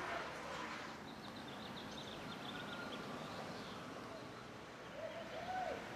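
Outdoor ambience: a steady faint noise bed with a quick series of high bird chirps about a second in, and a faint distant voice near the end.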